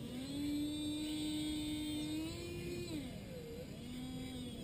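Hobby Engine RC excavator's small electric motors and gearing whining as the upper body swings round and the arm moves. The whine steps up in pitch, glides down about three seconds in, then settles at a lower pitch.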